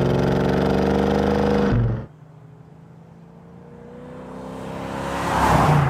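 1968 Dodge Charger R/T's 440 cubic inch V8 accelerating, heard close at the tailpipe with its pitch rising steadily. It cuts off about two seconds in. The car is then heard approaching from far off, growing steadily louder until it passes close near the end.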